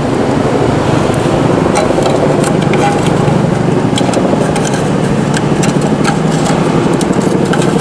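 City street traffic noise: a steady hum of vehicle engines, with scattered sharp ticks through it.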